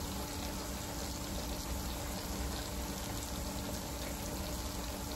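Thin pork chops deep-frying in hot oil: a steady bubbling sizzle, with a low steady hum beneath it.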